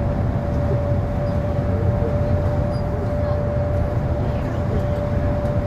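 A moving train running steadily: a continuous low rumble with a constant whining tone held over it.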